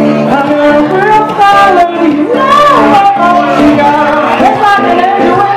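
Live acoustic duo music: a woman singing the melody over acoustic guitar chords, her voice sliding between notes.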